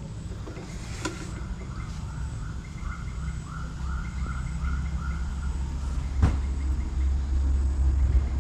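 A low rumble that grows louder in the second half, with a bird calling in a quick series of short rising-and-falling notes, about three a second, for a few seconds. There is a sharp knock about six seconds in.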